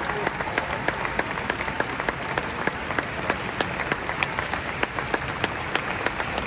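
Large concert audience applauding steadily, a dense mass of many hands clapping at once.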